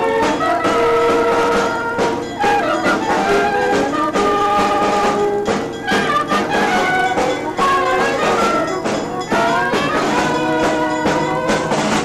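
A marching brass band playing, with held brass notes over steady bass-drum beats.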